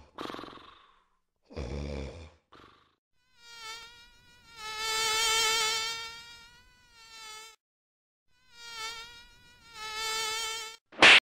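A mosquito's high whine buzzing close by in two passes, each swelling and fading, after a couple of short low grunts from a man at the start. Near the end comes a single sharp, loud smack.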